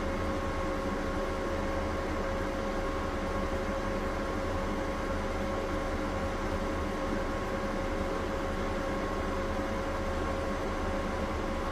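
EG4 solar inverters running with a steady hum and their cooling fans going, mixed with the steady running of an inverter-type window air conditioner. Two steady tones sit over even fan noise.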